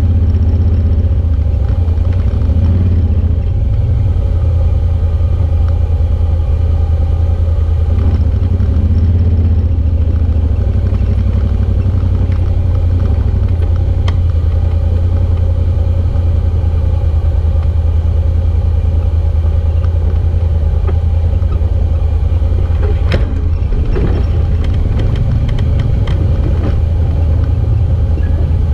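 Side-by-side UTV engine running steadily while driving slowly over a rocky dirt trail, a low continuous drone. One sharp knock about three-quarters of the way through.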